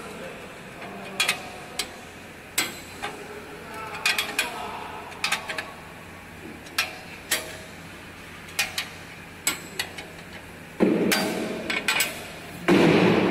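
Sharp metal clinks and taps, a dozen or so spread unevenly, from hex keys and hands working the bolts of a stainless steel tube-feeding guide on a flow wrapping machine, with two louder, longer metallic clatters near the end.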